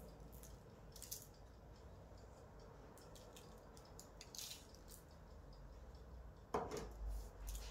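Salt being sprinkled by hand onto tomato-topped cauliflower slices on a parchment-lined baking tray: faint, scattered high-pitched ticks of falling grains. A single louder knock comes about six and a half seconds in.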